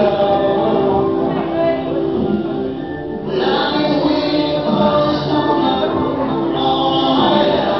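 Music with several voices singing together in held notes.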